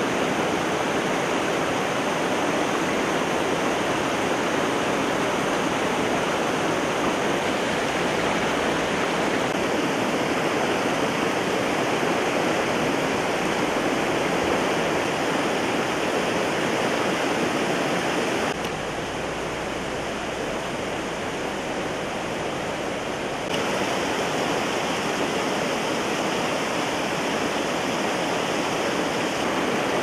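Steady rush of a mountain river's rapids and small cascades of spring water tumbling over rocks. It drops a little quieter for about five seconds past the middle, then returns to full strength.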